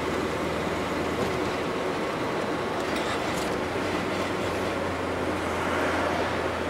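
Steady engine and road noise inside the cab of a GAZelle light truck cruising on a highway, with a constant low engine hum under the tyre and wind rush.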